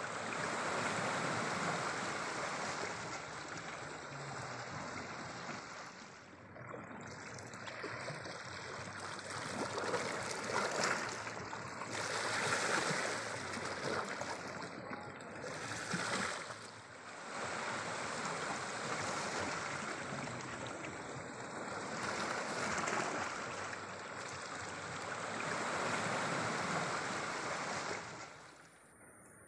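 Sea surf washing in below the cliff, a steady rush that swells and eases every few seconds, then drops away near the end.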